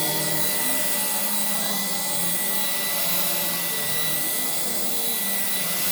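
Electric power tool running steadily with a high whine.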